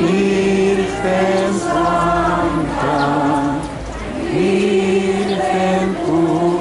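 A congregation singing a slow hymn together in unison, in long held notes with a short breath pause about four seconds in.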